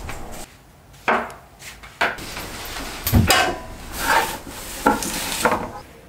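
Laundry being handled and loaded into a front-loading washing machine: a few knocks and a low thud about three seconds in, with cloth rustling against the drum.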